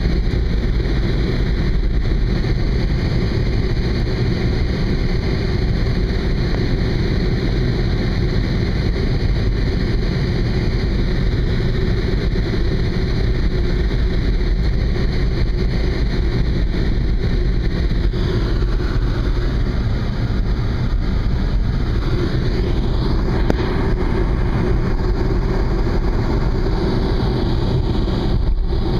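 Steady road noise and wind rumble of a car driving along a highway.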